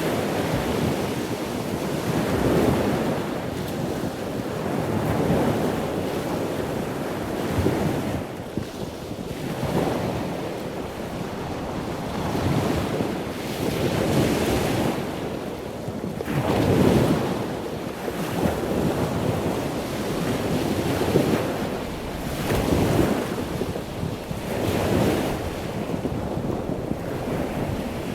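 Ocean waves washing ashore in a steady rush that swells and ebbs every few seconds.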